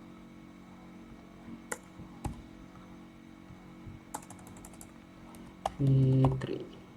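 Computer keyboard being typed on in scattered keystrokes, with a quick run of key presses about four seconds in. Near the end a brief steady low hum, the loudest sound.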